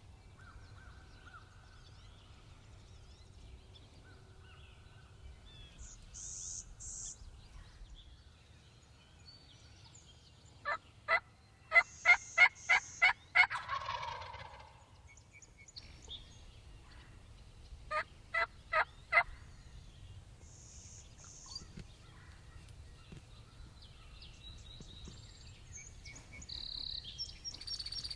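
Turkey yelps: a run of about eight sharp, evenly spaced notes, then a lower rattling gobble that falls in pitch. A shorter run of four yelps comes a few seconds later, with faint high bird chirps between.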